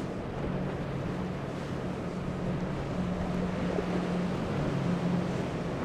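Outboard engines of a center-console boat running at speed with a steady low drone, over the rush of spray and surf, with wind buffeting the microphone.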